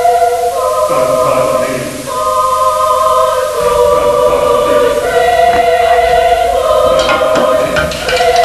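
A choir singing slow sustained chords in a gospel-like style, the chord changing every second or so. Light clicks and taps sound under it in the last few seconds.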